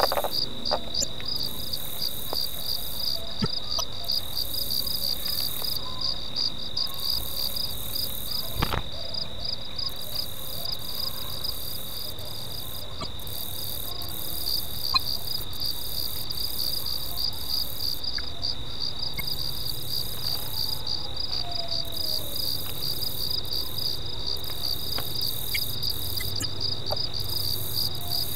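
Steady insect chorus: a continuous high-pitched trill with a fast pulsing note, and a higher hiss that switches on and off every second or two. A single sharp click about nine seconds in.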